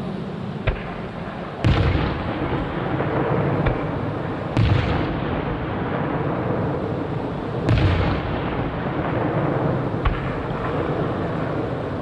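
Aerial fireworks shells bursting: three heavy booms about three seconds apart, with single sharp cracks between them, over a continuous rumble and crackle from the display.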